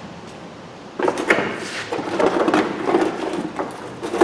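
A stiff plastic wheel arch liner being pushed and worked into a car's front wheel well. From about a second in come irregular scraping, rustling and knocking sounds as the plastic rubs and bumps against the body.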